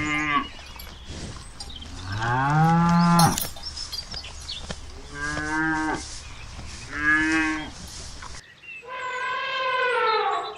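Cattle mooing: several separate calls, the longest and loudest with a deep rising start about two seconds in. After an apparent cut near the end comes a higher-pitched call.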